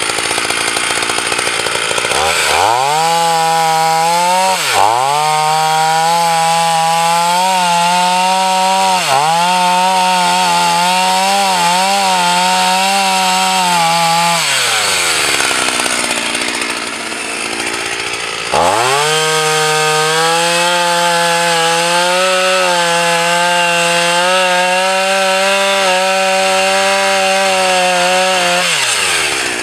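Husqvarna 240 chainsaw's two-stroke engine revving up and cutting through a log, its pitch wavering under load. It drops back to idle for a few seconds about halfway through, then revs up again for a second cut and eases off near the end.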